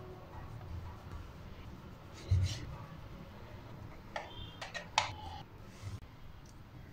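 Kitchen knife cutting through bread slices on a plastic cutting board: soft scraping and handling noise, a dull thud about two seconds in, and a few sharp clicks between about four and five seconds in.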